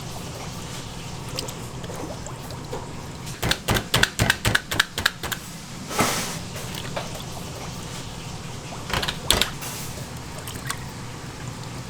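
Kitchen work sounds: a quick run of about a dozen sharp knocks, then a short noisy rush and a few more knocks, over a steady low kitchen hum.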